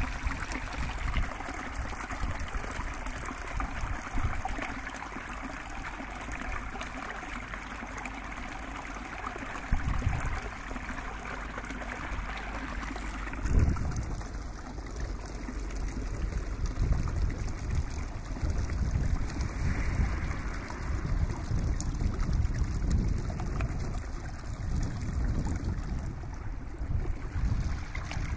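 Steady rushing noise like running water, with a brief low thump about ten seconds in and a louder one near the middle, after which a low rumble comes and goes.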